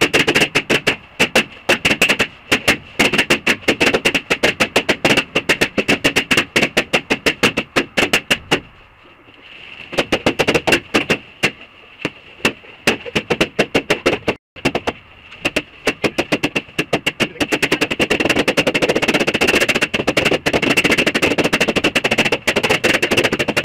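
Party balloons popping in rapid succession, many sharp pops a second, with a brief lull about nine seconds in.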